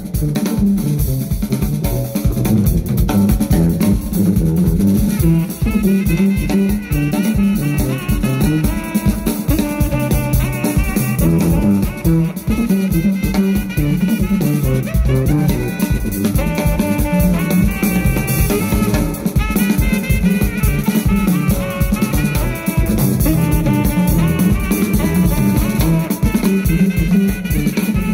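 Live jazz band playing. A tuba plays a repeating bass line over a busy drum-kit groove, and a saxophone melody comes in about five seconds in.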